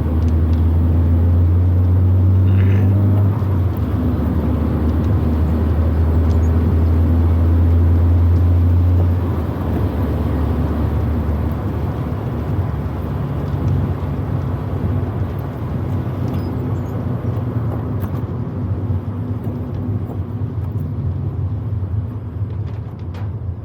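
Proton Wira 1.5's four-cylinder engine heard from inside the car while driving: a loud steady drone over tyre and road noise. About nine seconds in the engine note drops and quietens, then carries on more evenly.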